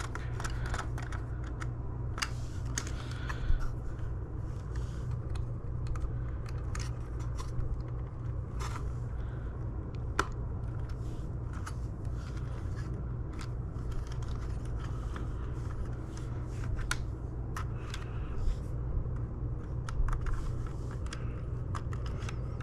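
Scattered small plastic clicks and scrapes of hands fitting a replacement roller-brush switch and its wires into a Shark vacuum's floor head, over a steady low hum.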